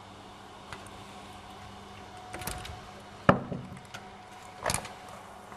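A loud, sharp knock about three seconds in, with softer thumps and rustles just before and after it, over a steady low hum.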